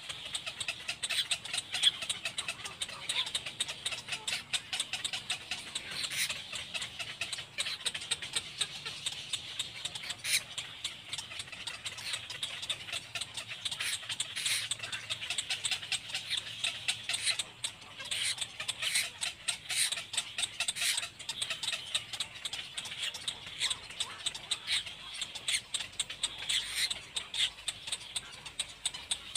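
Little black cormorant chick calling: a continuous high, rapid chatter of squeaky calls and clicks.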